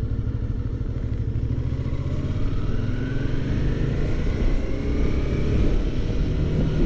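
Motorcycle engine running under way. From about two and a half seconds in its pitch rises and it gets louder as the bike speeds up.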